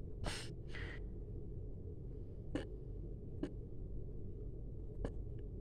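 Flip phone keypad buttons being pressed: four short sharp clicks about a second or more apart, over a low steady hum. Two soft breathy puffs come just before them, near the start.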